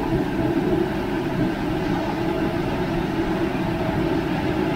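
Large pot of pork-bone and bamboo-shoot soup simmering at a boil: a steady rumbling noise with a faint low hum.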